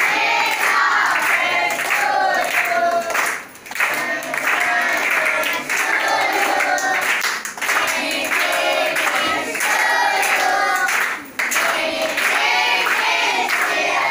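A group of children singing a song together in unison, in phrases with short breaks, with some hand clapping along.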